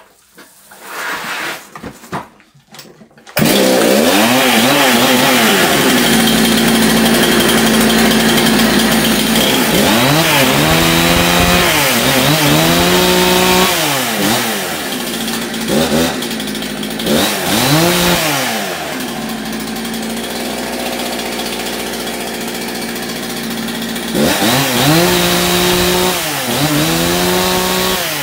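Husqvarna 272XP two-stroke chainsaw starting about three seconds in and running at high revs. Its revs are then dropped and brought back up several times, it settles lower for a few seconds, and it is revved high again near the end.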